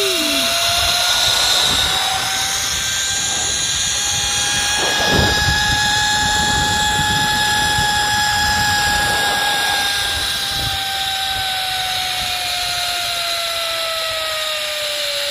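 Zipline trolley pulleys whining as they run along the steel cable, with wind rushing over the microphone. The whine rises slightly at first, holds steady, then slowly drops in pitch over the last few seconds as the rider slows toward the landing platform.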